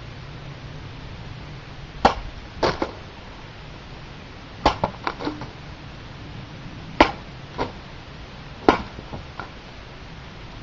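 Katana slicing through a rolled tatami-omote target: four sharp cuts spread over several seconds. Each cut is followed by one to three softer knocks as the severed pieces drop.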